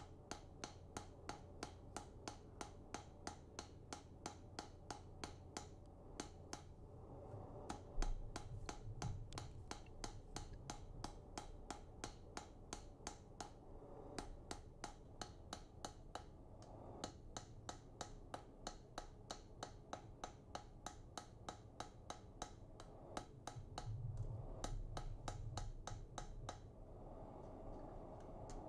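Sharp, even clicking at about two and a half clicks a second, over a low hum, with a louder low rumble twice.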